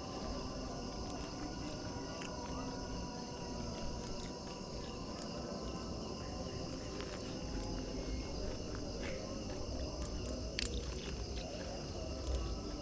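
Night insects, crickets among them, chirring steadily in a constant chorus over a low rumbling background, with a few scattered sharp clicks and snaps, the loudest a little over ten seconds in.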